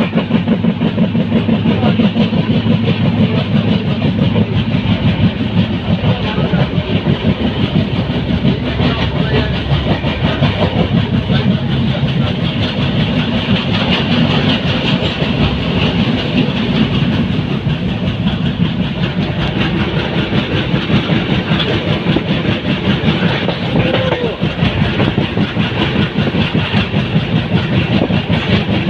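Passenger train running along the track: a loud, steady rumble with the wheels clattering on the rails.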